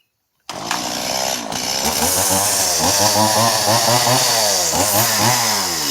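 Two-stroke gas chainsaw carving into an oak log: it cuts in abruptly about half a second in and runs at high revs, its pitch dipping and rising again and again as the chain bites into the wood.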